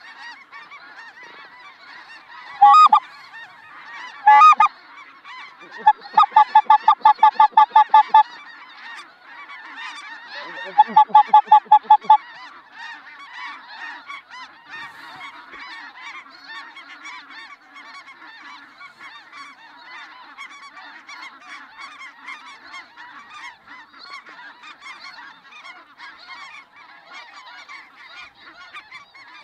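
Large flocks of snow geese calling constantly overhead in a dense, high-pitched chatter of many honks. Much louder, close honks stand out: two single ones early, then two quick rapid-fire runs of honks, about five a second, in the first half.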